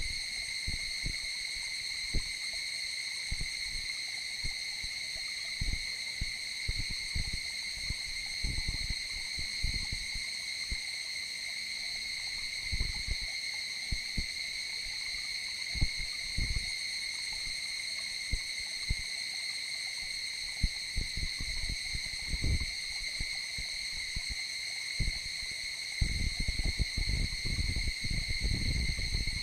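Steady high-pitched insect chorus, unbroken, with irregular low wind rumble on the microphone that grows stronger near the end.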